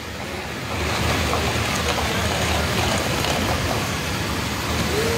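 Pressure-washer jet hissing steadily as it sprays water onto a foam-covered tractor's wheel and body, swelling about a second in, over a steady low motor hum.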